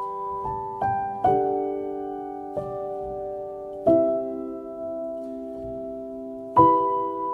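Slow, gentle piano music: soft chords struck every second or few, each left to ring and fade.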